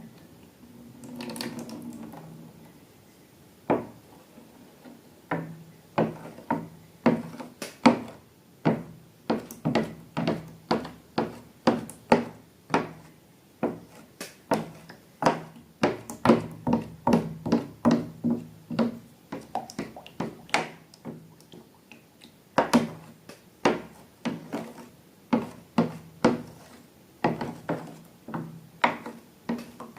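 A long run of sharp taps and knocks from objects being handled on a hard surface, about two a second, starting a few seconds in.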